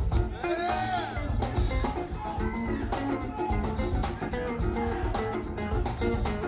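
Background music with drums and a steady beat, including some sliding, bent notes.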